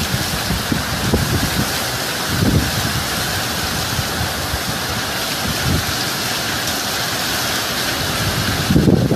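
Hurricane wind and driving rain blowing steadily, with gusts buffeting the microphone every few seconds and a stronger gust near the end.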